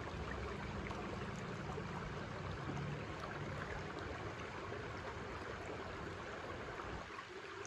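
Shallow, clear creek flowing over and around rocks: a steady, even rush of running water.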